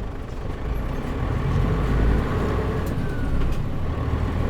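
Diesel engine of a Mitsubishi Fuso KL-MP37JM non-step city bus running on the move, heard from inside the passenger cabin. It grows louder about a second in, with road noise throughout.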